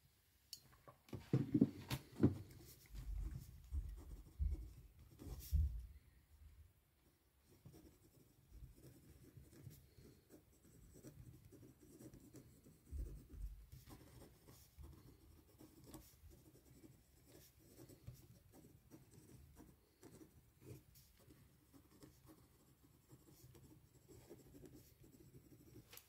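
Handwriting on paper: faint, steady scratching of a pen or pencil stroke after stroke. Before it, in the first few seconds, there are several low knocks and bumps of handling on the desk.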